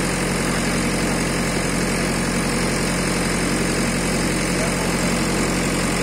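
JCB backhoe loader's diesel engine idling steadily, a constant low drone with no revving.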